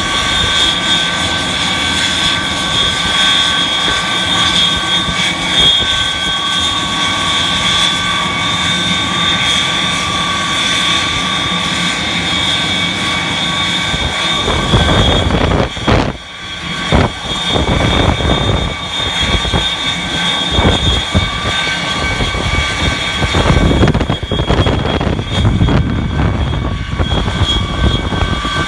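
Rail de-icing machine running loud and steady, with a high whine like a jet engine's. From about halfway, gusts of wind buffet the microphone and add a heavy low rumble, with a brief lull partway through.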